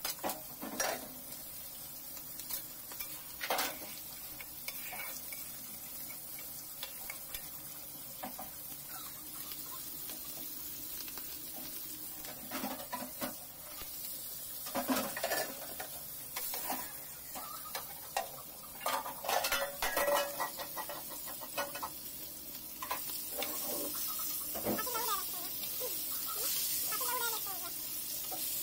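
Metal utensils clinking and knocking against an aluminium cooking pot of potato curry, scattered clanks with stirring. Near the end, a steady sizzle of fish steaks frying in oil in a wide pan, with a metal spatula scraping.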